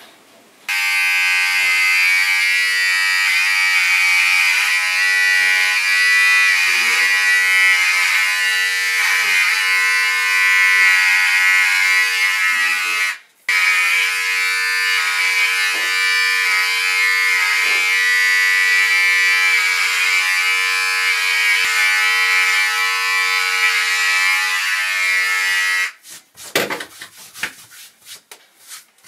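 Electric hair clipper buzzing steadily as it is run through the hair, switched on about a second in, cut off for a moment halfway, and switched off near the end. Soft rustling follows as hair clippings are brushed off the shoulder of a shirt.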